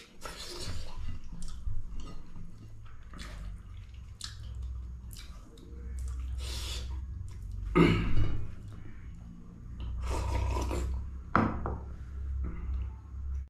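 Eating from a plate: scattered clinks, knocks and scrapes of tableware, with a few louder knocks, and chewing between them.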